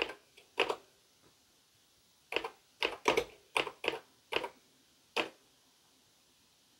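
Keystrokes on a DEC VT102 terminal keyboard: a couple of sharp key clicks near the start, a quick run of about seven about two to four and a half seconds in, then one last keystroke about five seconds in.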